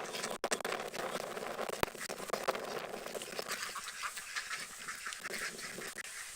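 Ducks quacking in irregular bursts.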